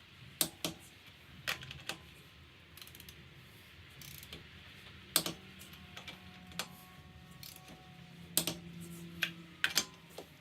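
Click-type torque wrench ratcheting on lug nuts, with a handful of sharp clicks at irregular intervals; each release click signals that a nut has reached its set torque of 100 foot-pounds.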